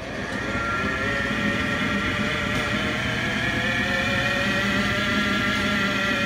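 Hardinge DV-59 turret lathe spindle running in reverse at high speed. It comes up to speed over about the first second, then runs steadily with a high machine whine over the hum of its drive.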